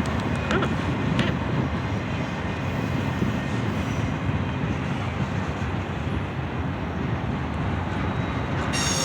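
Freight train running past with a steady low rumble. Near the end a high-pitched squeal starts.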